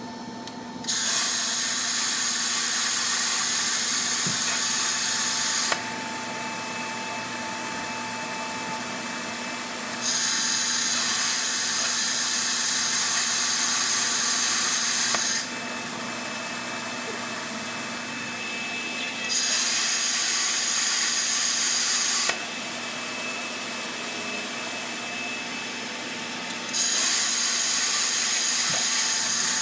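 Handheld plasma cutter, guided by a Plasma Glide template tracer, cutting metal: a loud, steady hiss of the arc and cutting air that comes on about a second in. It runs in four stretches of three to five seconds each, with a quieter steady hiss in the gaps between cuts.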